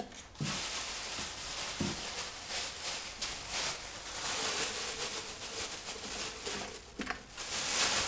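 Clear plastic bag crinkling and rustling as vegetable peels and eggshells are shaken out of it into a steel blender jug, with a couple of light knocks.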